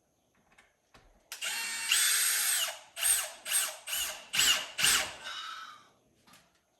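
Power drill driving a screw: one steady run of the motor, then several short trigger bursts as the screw is snugged in.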